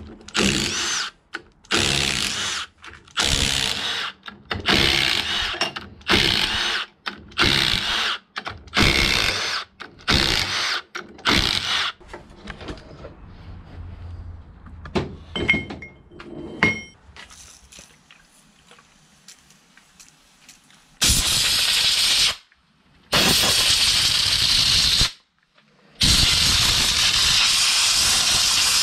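Cordless impact wrench hammering in about a dozen short bursts, undoing the ring-gear bolts on a differential carrier. Then a few light metal clicks, and two long steady hisses of spray from a pressurised spray bottle, the second running about three seconds.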